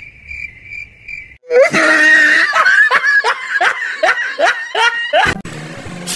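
Crickets chirping for the first second and a half, then a person laughing loudly in a quick run of 'ha's, about three a second, which stops about five seconds in.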